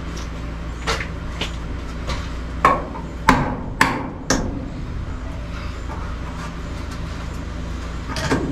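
Sharp knocks from work on a round electrical box on the ceiling: a light tap about a second in, four strong knocks about half a second apart around the middle, and another near the end, over a steady low hum.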